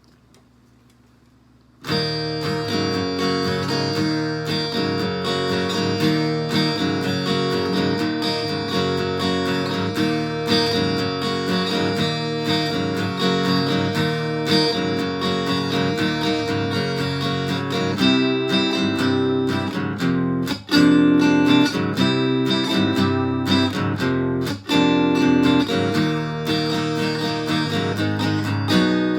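Acoustic guitar amplified through a Bartolini 3AV soundhole pickup, a BOSS DS-1 distortion pedal and a small amp, strumming chords in a half-step-down tuning. It starts about two seconds in, gets louder partway through, and breaks off briefly twice near the end.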